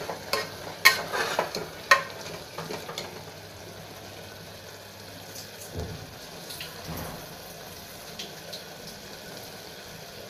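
Vegetable masala sizzling in an open pressure cooker, with a metal ladle clinking against the pot three or four times in the first two seconds as it is stirred, then a steady sizzle.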